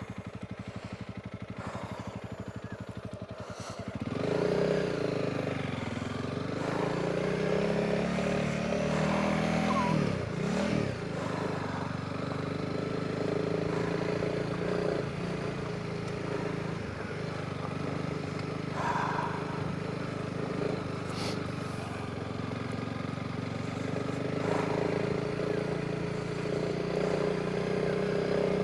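Honda CRF300 Rally's single-cylinder four-stroke engine ticking over at low revs, then pulling away about four seconds in and running under load, its note dipping and rising around a gear change.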